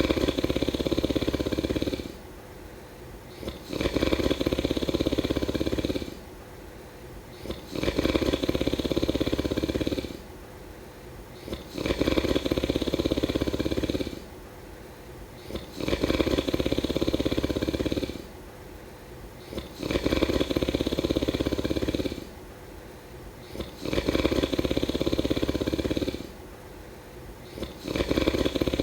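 A person snoring steadily while asleep, one rattling snore about every four seconds, each lasting about two seconds, with quiet breaths between them.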